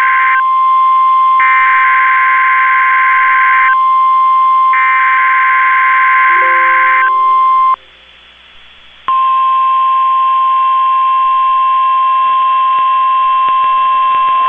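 Emergency Alert System broadcast over NOAA Weather Radio: three raspy digital SAME header data bursts, each about two seconds long, over a steady tone. After a short drop about eight seconds in, the long, steady, single-pitch weather radio warning alarm tone sounds.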